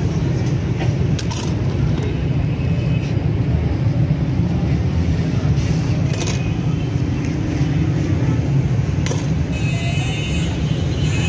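Steady low rumble of street traffic, with a few sharp metallic clinks of steel kebab skewers being handled at a charcoal grill.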